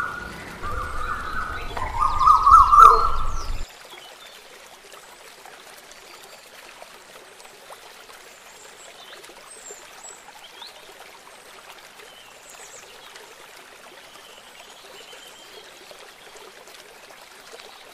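A loud stretch with sliding whistle-like tones over a low rumble cuts off suddenly about three and a half seconds in. After it comes faint, steady trickling water with occasional bird chirps.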